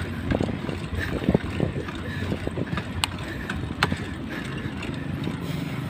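Wind buffeting the microphone and road rumble from a bicycle riding along a paved road, with scattered small knocks and clicks from the bike.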